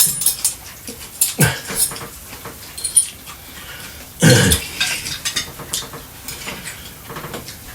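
Cutlery clinking and scraping on plates during a meal, with loud chewing and mouth noises. Two louder dull knocks stand out, one about a second and a half in and one past the middle.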